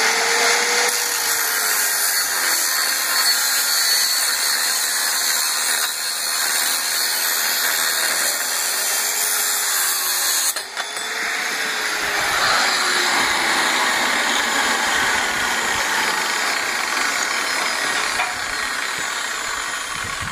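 Angle grinder cutting through a metal pipe clamped in a vise, a loud steady grinding with the motor's pitch wavering as the disc bites. The noise breaks off briefly a little past halfway, then resumes.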